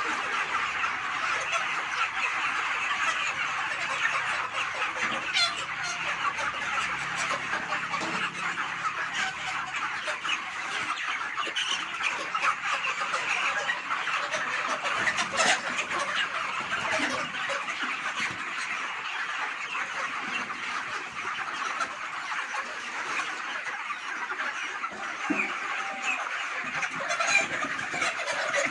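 Large flock of chickens clucking and chattering continuously, many calls overlapping into a steady din.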